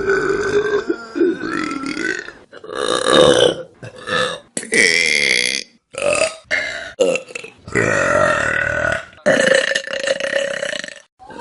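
A string of about eight loud human burps, one after another with short gaps between them, several of them long and pitched, lasting a second or more.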